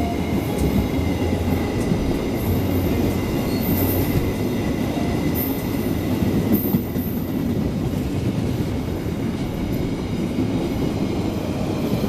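Freight train of tank wagons rolling past close by: a steady heavy rumble of wheels on rails, with brief high wheel squeals several times in the first half.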